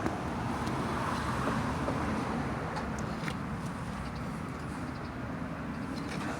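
Steady low rumble of outdoor background noise, swelling slightly about a second in, with a few faint clicks.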